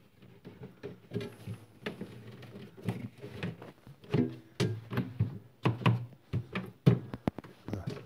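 Fly-screen panel in a frame being fitted and pressed into place against the lower compartment of a refrigerator cabinet: a run of irregular knocks, taps and clatters.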